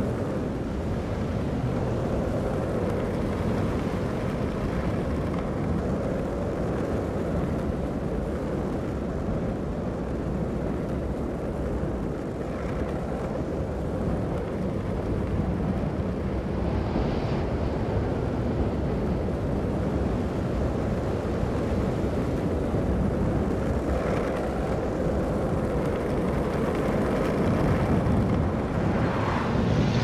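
Longboard wheels rolling fast on asphalt, a steady rumble mixed with rushing wind from a downhill run at speed. Faint short hisses come about halfway through and again near the end.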